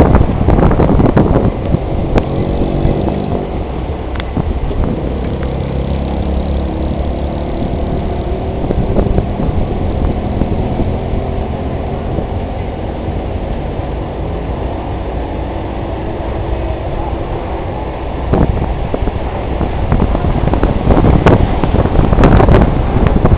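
Vehicle engine running and road noise, heard from the moving vehicle, with a steady engine hum through the middle. From about three quarters of the way through, wind buffets the microphone.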